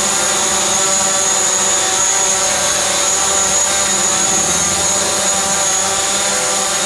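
DJI Mavic Pro quadcopter hovering on its 8331 low-noise propellers: a steady buzz of many stacked propeller tones with a thin high whine on top, holding level at about 56 to 58 decibels on a meter close by.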